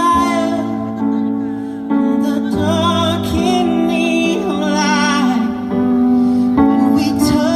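Music: a singer's voice with vibrato over held, slowly changing chords, in a slow, tender style.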